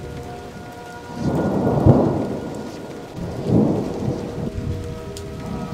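Steady rain with two rolls of thunder, the first swelling about a second in and peaking near two seconds, the second shorter and coming about three and a half seconds in.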